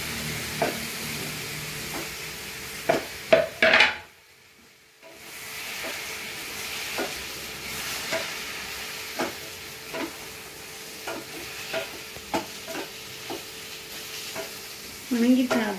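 Onions and tomatoes sizzling in a steel kadai on a gas flame while a spatula stirs them, scraping and knocking against the pan every second or so, loudest a little after three seconds in. The sound cuts out for about a second just after four seconds in.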